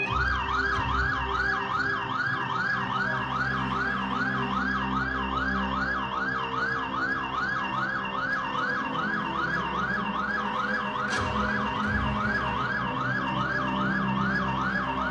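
Emergency-vehicle siren in a fast yelp, its pitch rising and falling about three times a second, starting abruptly, over a steady low drone.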